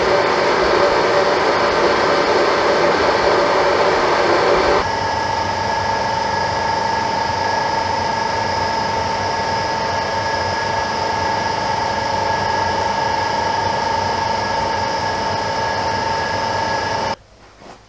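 TOS metal lathe running steadily, a machine hum with whining tones. About five seconds in it drops a little and settles to one steadier whine, and it cuts off suddenly near the end.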